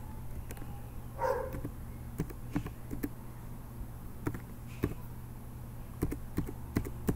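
Slow, uneven typing on a computer keyboard: single key clicks spaced a fraction of a second to a second apart, over a low steady hum. A brief voice-like sound comes about a second in.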